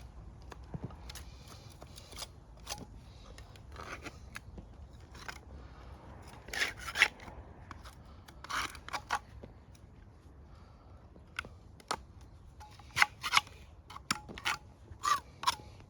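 A scraper working caked grease and dirt off a gearbox casing in irregular short scraping strokes, with a few louder clusters of strokes partway through and near the end.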